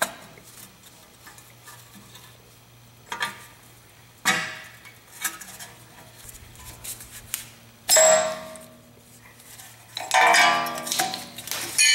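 Metal clinks and clanks of a socket and ratchet working the parking brake shoe hold-down springs off a rear drum-in-hat brake: a few sharp clanks that ring on, the loudest about two-thirds of the way through, then a longer ringing metal rattle near the end.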